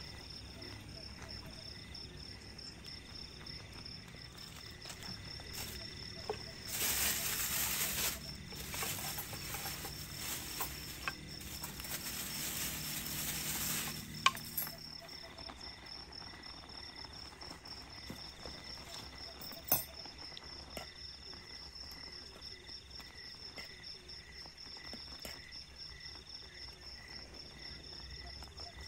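Crickets chirping in a steady pulsing rhythm. Partway through, a louder hiss lasts about eight seconds and ends abruptly, and a couple of sharp clicks follow.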